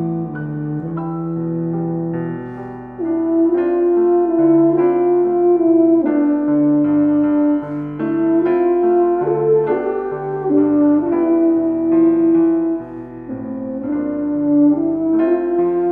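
Tuba and Yamaha grand piano playing classical chamber music together: the tuba holds long sustained melody notes over the piano accompaniment.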